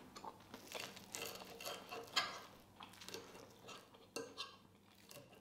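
Light, irregular clinks and taps of cutlery against dishes, the sharpest about two seconds in, over a faint steady hum.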